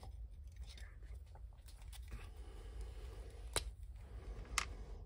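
Small objects being handled on a workbench: two sharp clicks about a second apart in the second half, over a faint low hum.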